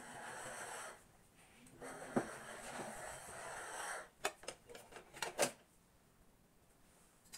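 Upright garment steamer hissing as steam jets from its handheld head, in two bursts, the first stopping about a second in and the second running about two seconds. Then a quick run of sharp clacks, hangers knocking on the clothes rail.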